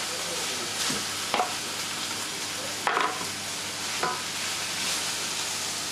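Stir-fry vegetables sizzling in hot olive oil in a stainless steel pot, stirred with a spatula that scrapes and knocks against the pot a few times.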